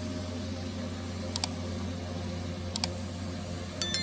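Steady hum of an MQ-9 Reaper's Honeywell TPE331 turboprop engine as the drone taxis. Over it come two quick double mouse-clicks of a like/subscribe animation and, near the end, a bright notification-bell chime, the loudest sound.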